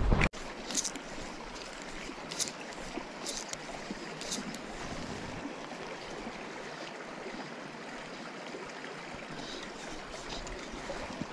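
Shallow mountain stream running over rocks, a steady rush of water, with a few short, high scratchy sounds in the first few seconds.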